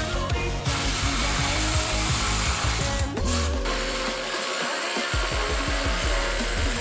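A power tool runs with a dense whirring noise, starting under a second in and stopping briefly about three seconds in, over background music with a steady beat.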